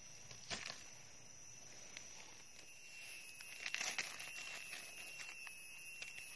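Dry leaves and twigs on the forest floor rustling and crackling in a few short bursts, the busiest about four seconds in. A faint steady high whine runs through the second half.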